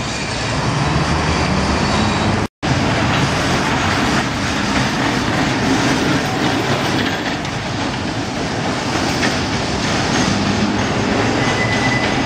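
Tatra trams running along street track: a steady rumble of steel wheels on rail and motor hum, mixed with road traffic. The sound drops out completely for a moment about two and a half seconds in.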